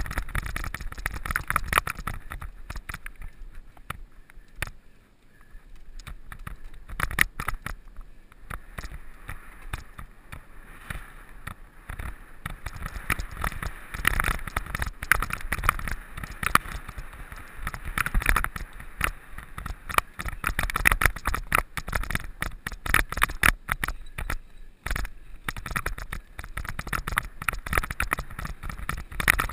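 Mountain bike clattering and rattling over rough ground, with tyre noise and wind rumble on the microphone. It goes quieter for a moment about five seconds in.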